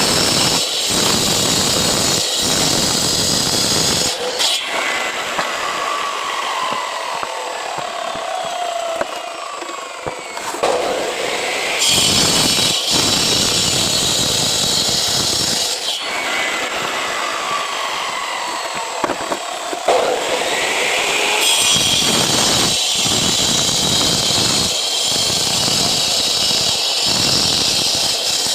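A power cutter with a masonry disc cutting concrete paving blocks, in three loud spells of cutting. Between cuts the motor winds down with a falling whine, then speeds up again with a rising whine before the next cut.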